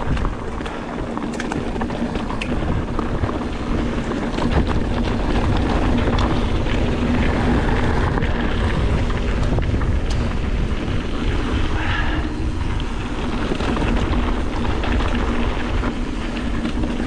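Mountain bike rolling over a rough, rocky trail, with wind on the microphone, a steady low hum and scattered small clicks and rattles.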